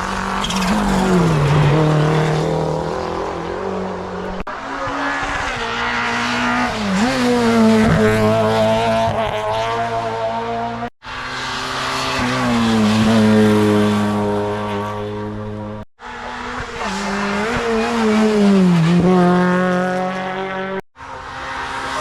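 Race cars at a hill climb running hard. The engine note climbs and drops repeatedly with gear changes and lifts for corners. It breaks off abruptly three times, about 11, 16 and 21 seconds in, as one short pass gives way to the next.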